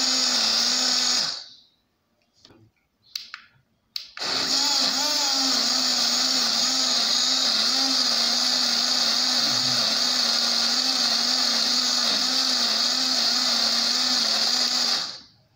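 Six-blade rechargeable portable blender running as it blends pepper paste with water. It winds down about a second and a half in, a few faint clicks follow, then it starts again at about four seconds and runs steadily until it winds down just before the end.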